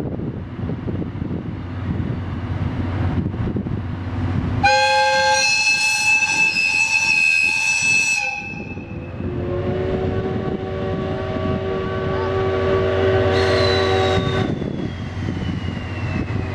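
A train rolls past, rumbling steadily, while a steam locomotive's whistle and an electric locomotive's air horn sound one after the other. A high, clear whistle blows for about four seconds, and a lower, multi-note blast follows for about five seconds. A thin falling tone comes near the end.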